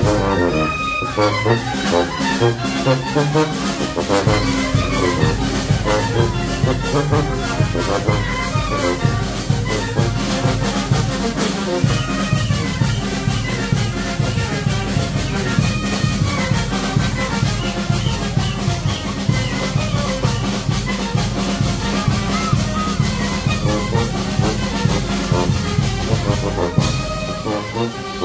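Live brass band playing dance music: brass instruments carry the tune over a steady bass drum and cymbal beat, which comes in about four seconds in.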